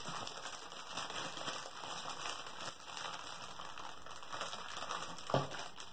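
Plastic packaging bags crinkling and rustling as they are handled, with a short thump a little after five seconds.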